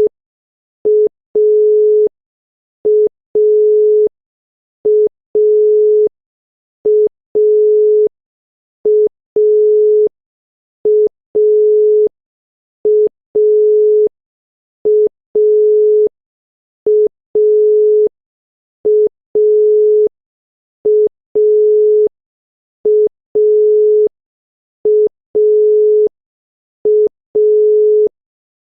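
Obsolete Croatian telephone dial tone (dial tone B): a single 425 Hz tone in a repeating short-long cadence, a short beep then a longer one, once every two seconds. It tells the caller that the line is ready to take a dialled number.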